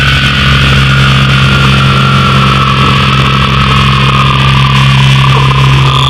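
Harsh noise music: a loud, distorted electronic drone with a steady low hum and a thin high tone that slowly sinks in pitch, over dense noise.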